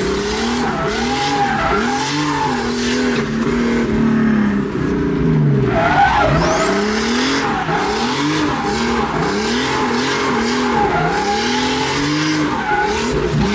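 Drift car engine revving up and down over and over, about once a second, while its tyres squeal and skid through the drift.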